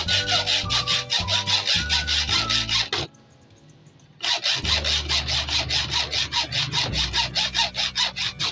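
Fast, rhythmic back-and-forth rubbing or scraping strokes, like hand sanding or scrubbing. They stop for about a second a third of the way in, then resume.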